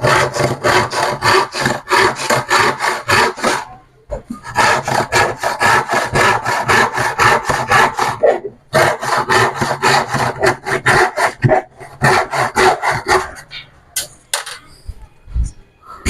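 Hand saw cutting plywood with quick, even back-and-forth strokes, in three runs separated by brief pauses, followed by a few knocks near the end.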